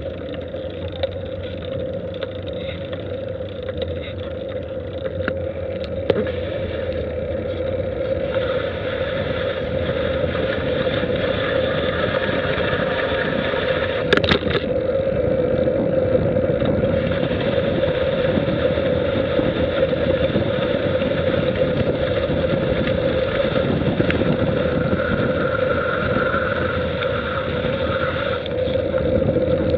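Steady wind and road noise on a moving camera's microphone, getting louder over the first half as the speed picks up on the descent. A single sharp knock sounds about halfway through.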